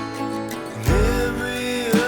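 Background music: a song with guitar and bass, a long held melody note coming in about a second in.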